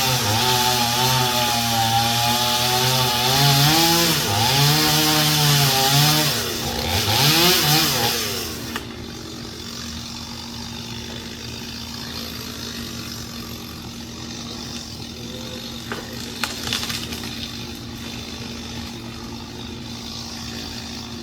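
Gasoline chainsaw running hard while cutting wood, its pitch dipping under load and rising again, then dropping away about nine seconds in. A quieter steady running sound follows, with a few sharp knocks later on.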